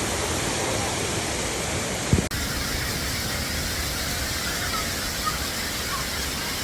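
Steady rushing water of a waterfall, heard as an even hiss that briefly cuts out about two seconds in.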